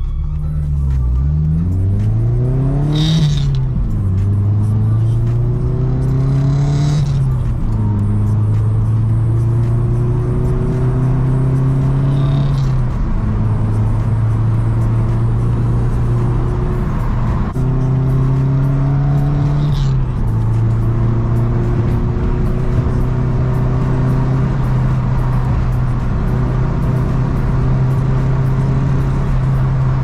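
Nissan S14's four-cylinder engine heard from inside the cabin, pulling the car away and up through the gears. Its note climbs and drops at each gear change, about four times in the first twenty seconds, then holds a steady cruise.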